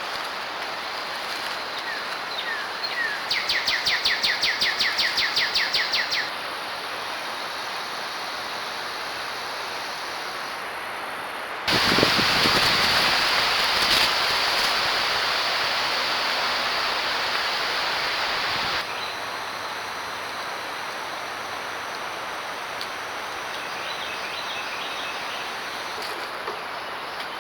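Outdoor ambience with a steady hiss. A rapid chirping trill, about seven notes a second, runs from about three to six seconds in. A louder stretch of hiss starts and stops abruptly between about twelve and nineteen seconds in.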